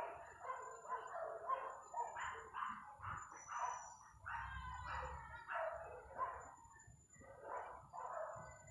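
A dog barking over and over, faint, about two barks a second.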